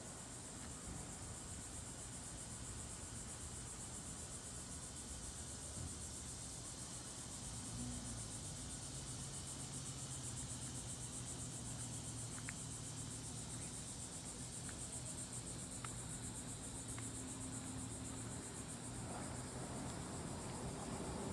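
Steady high-pitched chorus of insects, a continuous buzz with a fast pulse, over a faint low hum.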